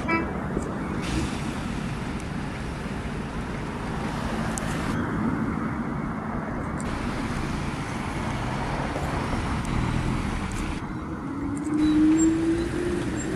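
City street traffic, with cars and vans driving past and tyres on the road. Near the end a Renault Trafic police van passes close by, its engine note rising.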